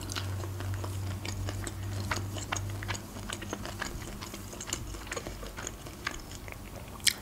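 Close-miked chewing of boiled shrimp: soft, wet mouth clicks and smacks scattered through, with one sharper click near the end. A faint low hum runs under the first three seconds.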